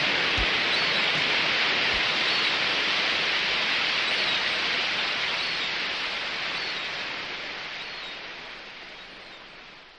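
A steady rain-like hiss fading out slowly over the last several seconds, with a few faint low thumps near the start.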